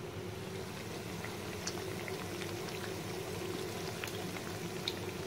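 Batter-coated potato slices frying in hot oil in a pan: a steady sizzle with scattered small pops and crackles.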